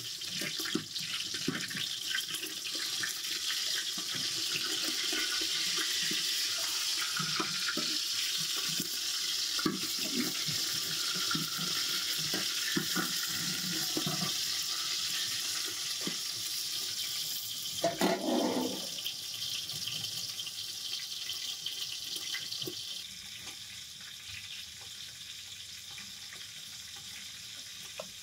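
Metal ladle stirring and scraping in a large aluminium pot of cooked food, over a steady hiss. The hiss grows quieter about twenty-three seconds in.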